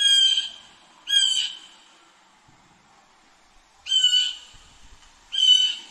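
Blue jay giving four loud 'jay' calls in two pairs, each call about half a second long, with a pause of a couple of seconds between the pairs.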